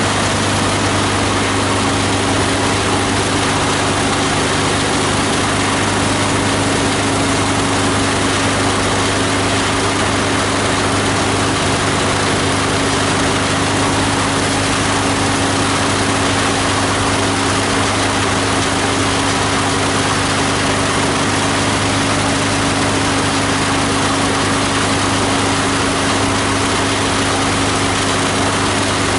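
18 HP diesel engine driving a multi-blade plastic grinder, running steadily at a constant speed with a low, even hum.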